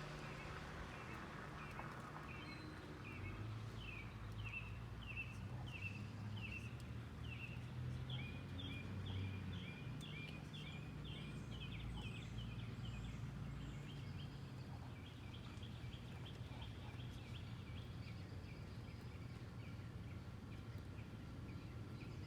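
A bird calling in a long series of short chirps, about two a second at first, quickening into a fast run around eight seconds in, then going on fainter, over a steady low hum.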